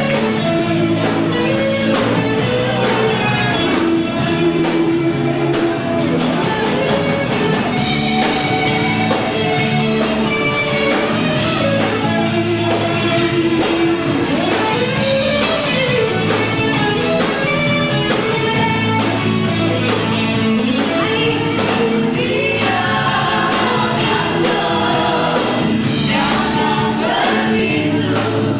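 Live band playing, with singing over a steady beat.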